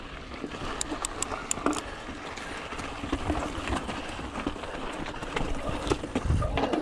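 Yeti SB6 full-suspension mountain bike rolling over a dirt and rock trail: a steady rumble of tyres on the ground, with sharp rattling knocks from the bike, several close together about a second in.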